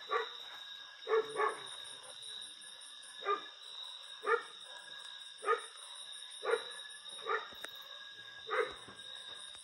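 A dog barking in short single barks, about nine of them, roughly one a second, with two close together a little after the first.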